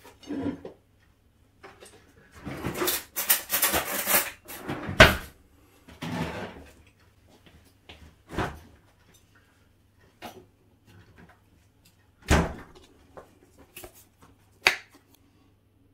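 Kitchen handling sounds: things being set down and cupboards and drawers opening and closing, a run of knocks and clatters. There is a rustling, clattering stretch about three seconds in, the loudest sharp knock about five seconds in, and further single knocks about twelve and fifteen seconds in.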